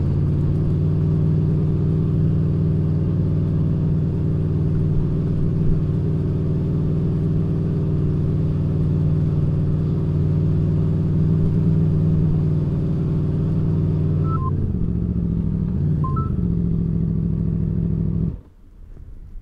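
Aprilia Tuono V4 1100 Factory's 65-degree V4 engine running at a steady, even pitch; about fifteen seconds in the pitch briefly dips and rises back, and a few seconds later the engine sound stops abruptly.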